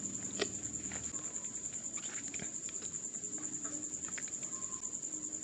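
A cricket trilling in one steady, high, finely pulsing tone, with scattered short wet clicks and smacks of eating by hand.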